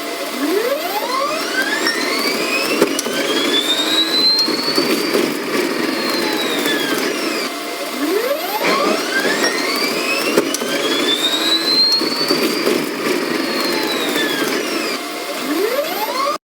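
A whine that slowly rises in pitch and then falls again, twice, over a steady mechanical hum.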